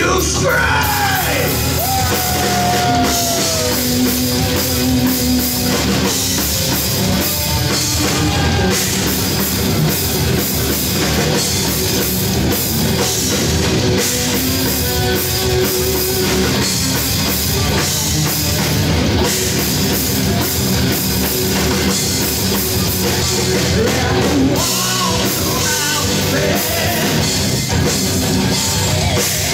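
Live rock band playing loud, heavy rock: drum kit and electric guitars, with some singing.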